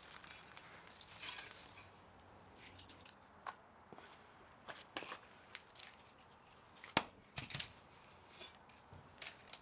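Scattered sharp clicks and clinks of hand tools and metal parts while a scrap electric motor is taken apart, with a brief scraping rustle about a second in and the loudest click about seven seconds in.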